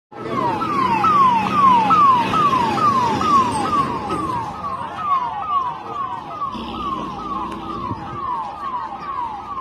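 A siren sounding in fast, repeated falling sweeps, a little over two a second, over a noisy background that is loudest in the first four seconds.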